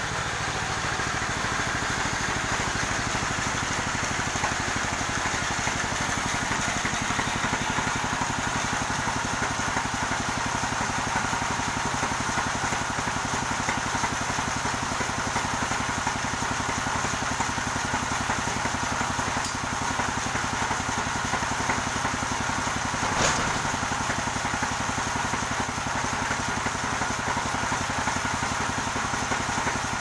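Portable sawmill's engine idling steadily, not cutting, with one sharp knock about two-thirds of the way through.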